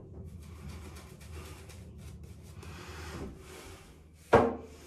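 Shaving brush swirling lather onto the neck: a soft, brushy rubbing. About four seconds in there is a single sharp knock.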